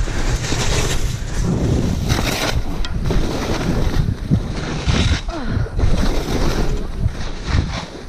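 Wind buffeting the chest-mounted action camera's microphone while skiing downhill, with the hiss of skis sliding and carving through snow swelling and fading in repeated surges.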